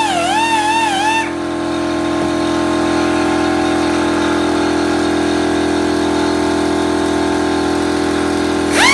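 Electric rotary carving tool running steadily with a constant, unchanging hum. A wavering music melody plays over it for about the first second and comes back near the end.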